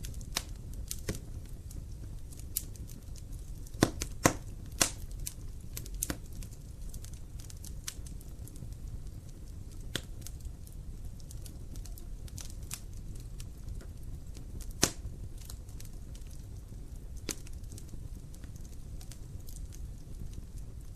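Wood fire crackling in a fireplace: irregular sharp pops, a cluster of louder ones about four to five seconds in and another near fifteen seconds, over a low steady rumble.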